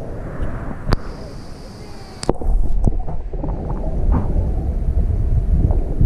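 An action camera is knocked twice while being handled above the water, then plunged into the river a little after two seconds in. From then on there is a muffled underwater rumble with small clicks and crackles.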